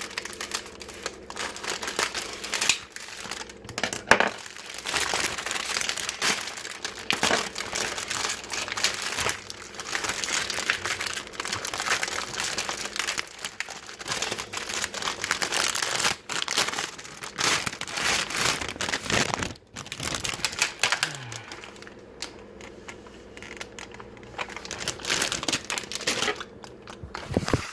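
Plastic cookie packaging crinkling and rustling as it is handled, in a dense run of crackles that eases off for a few seconds near the end.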